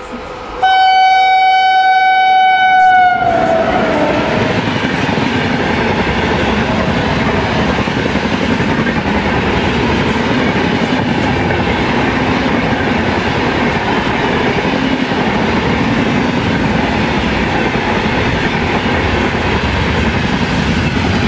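WAP7 electric locomotive horn blaring for about three seconds as the train approaches, dropping in pitch as it passes. It is followed by the steady rushing rumble and wheel clatter of the express's passenger coaches going by on the adjacent track.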